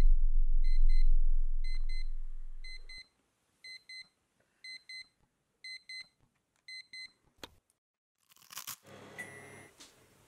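Digital alarm clock beeping in short high double beeps, about one pair a second, waking a sleeper, then stopping about seven seconds in. A deep low drone fades out over the first three seconds, and a click and a brief rustle follow the beeps near the end.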